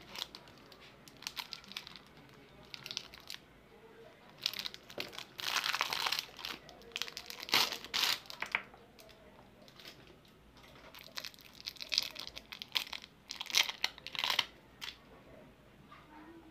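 Thin plastic lollipop wrappers crinkling and tearing as they are handled and pulled off the candies, in irregular crackly bursts that come in two spells, the loudest near the middle.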